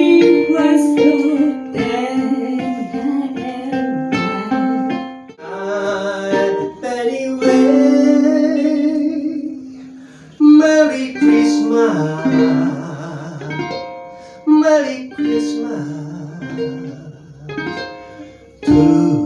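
Live song accompanied on ukulele: a woman's and a man's voices singing over plucked and strummed ukulele chords.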